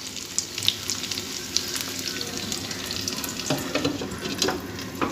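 Vetki (Asian sea bass) steaks sizzling in oil in a frying pan on low heat, a steady crackle with many small pops. Near the end a glass lid is set on the pan with a couple of light knocks.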